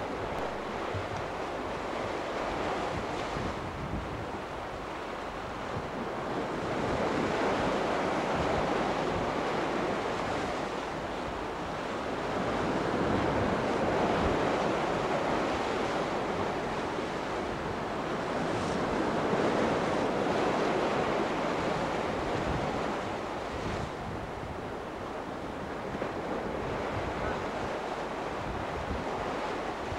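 Small sea waves washing against a rock, swelling and fading about every six seconds, with wind buffeting the microphone.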